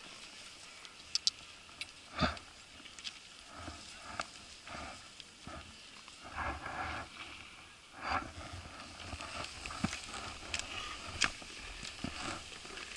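Scattered clicks, knocks and short scrapes of skis and ski poles on packed snow.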